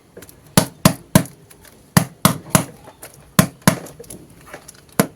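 Sharp knocks on a hard surface in quick runs of three, the runs about a second and a half apart, like a blade or tool chopping down onto a board.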